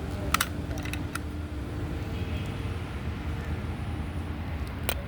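A few light clicks from a small die-cast metal toy car being handled, a cluster in the first second and one more near the end, over a steady low hum.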